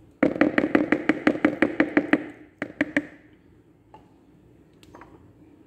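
Wooden spoon beating creamed butter and sugar in a bowl: a quick run of knocks, about seven a second, for some two seconds, then two more strokes and a few faint taps.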